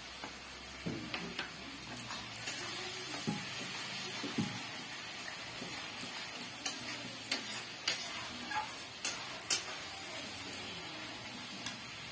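Chicken curry masala frying in a steel kadhai: steady sizzling, with a metal spatula scraping and clinking against the pan now and then, the sharpest clinks in the second half.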